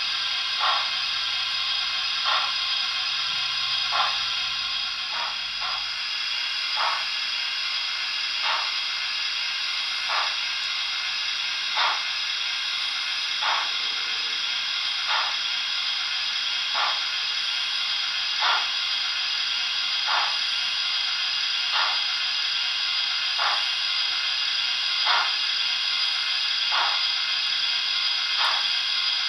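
Model steam locomotive sound from a Zimo digital sound decoder in a Hornby OO gauge Stanier 'Princess Coronation' Pacific, played through the model's small speaker. Slow, even exhaust chuffs about every second and a half to two seconds sound over a steady hiss of steam as the locomotive crawls along.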